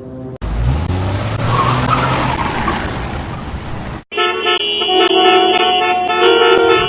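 A car pulling away hard, its engine note rising under a loud rushing noise of tyres and exhaust for about three and a half seconds, cut off suddenly. Then a car horn blares, held steady for nearly three seconds.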